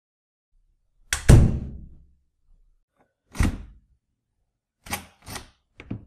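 A door shutting with a heavy thud about a second in, followed a couple of seconds later by a second, shorter knock, then three short sharp clicks near the end.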